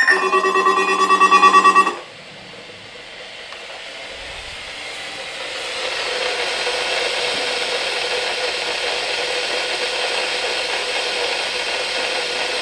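A rapidly pulsing electronic alert tone cuts off about two seconds in. Hiss of radio static takes over, growing louder over the next few seconds and then holding steady: the weather radio receiver picking up noise with the NOAA Weather Radio transmitter off the air.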